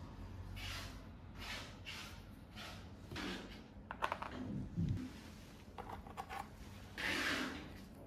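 Hands handling small hollow plastic toy food pieces, a carrot and an ear of corn: soft rubs and light taps on plastic. A quick run of clicks and a knock come about four seconds in as the carrot is set down among the plastic toy dishes, and a louder rustle comes near the end.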